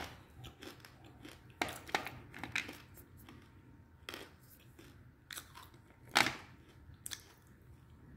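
Edible clay (mitti) chunks being crunched and chewed in the mouth, heard up close as scattered short crunches about every half second to a second. The loudest crunch comes about six seconds in.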